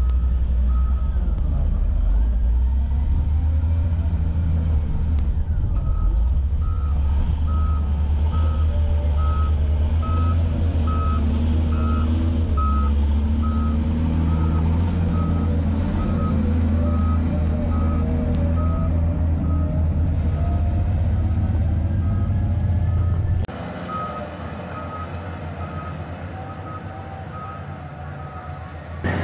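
Caterpillar 950F wheel loader's diesel engine running under load, with its reverse alarm sounding a steady beep about every three-quarters of a second as it backs up. Near the end the engine drops to a quieter, more distant sound while the beeping carries on.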